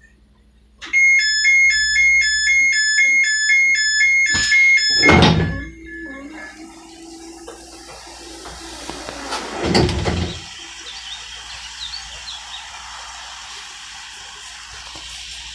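Vivarail Class 230 passenger door opening: a rapid repeating two-note warning beep for about four seconds after the open button is pressed, then a thunk as the doors release. A low hum follows as they slide open, ending in a second thunk about ten seconds in as they reach fully open.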